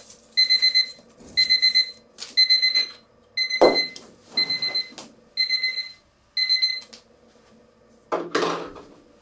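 Electronic alarm beeping: quick groups of high beeps repeating about once a second, stopping about seven seconds in. A rustle and a knock follow near the end.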